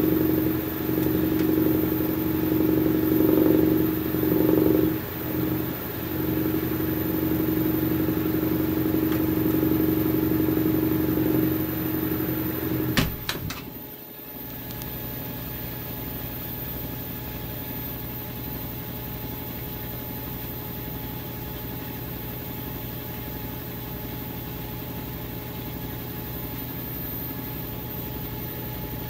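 LG Twin Wash Mini pedestal washer running, its drum turning with a loud steady motor hum. About 13 seconds in there are a few sharp clicks, and the hum drops to a quieter steady drone.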